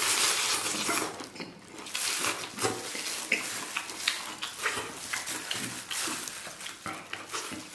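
Close-up chewing of a mouthful of pickled cabbage: wet, crunchy mouth sounds and smacks in quick, irregular bursts.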